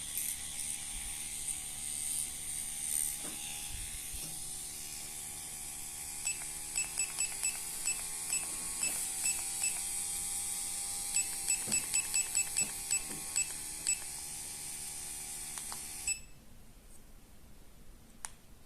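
Tattoo machine motor running on a wireless battery, with a run of short electronic beeps as the battery's buttons are pressed. The motor's pitch rises and then falls back while the beeps go on, and it stops suddenly near the end.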